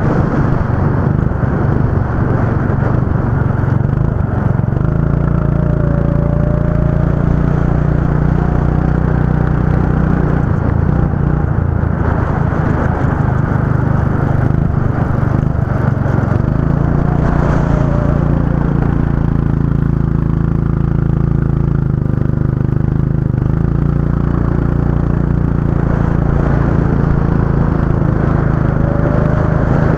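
Go-kart engine running with a steady drone, its pitch dropping and rising several times as the throttle is eased and opened again.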